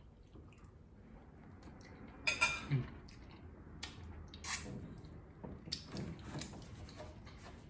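Close-up eating noises: chewing a shrimp with pasta, with wet lip smacks and finger-sucking as chili oil is licked off the fingers. The loudest smacks come about two and a half, four and a half and six seconds in.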